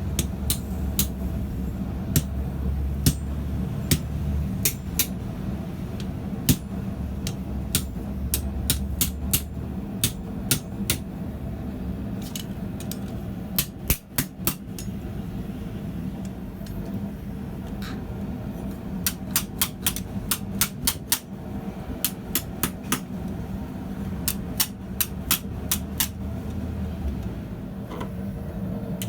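Hammer blows ringing on hot steel over an anvil, struck in irregular runs of sharp strikes with short pauses between them, over a steady low hum.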